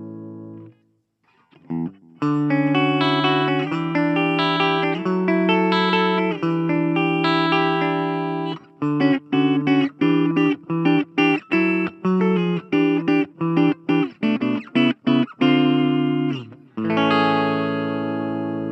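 Clean electric guitar: a Gibson Les Paul Standard through a Blackstar Fly 3 mini amp on its clean channel with the ISF control turned to the left. A chord dies away and there is a brief gap, then held chords ring for several seconds, followed by a run of short choppy chords, about two or three a second, ending on a long ringing chord.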